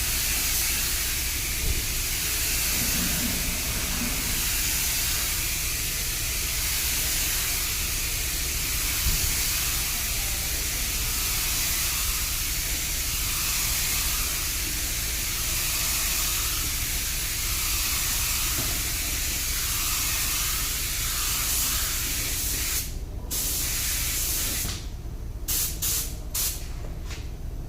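Air spray gun hissing steadily as it sprays clear coat onto a car body panel. Near the end the hiss breaks off briefly, then stops and starts several times in short bursts.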